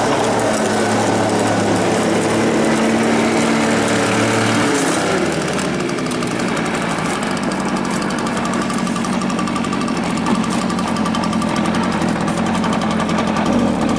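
Small petrol leaf-blower engine running steadily, then turning rougher and slightly quieter about five seconds in.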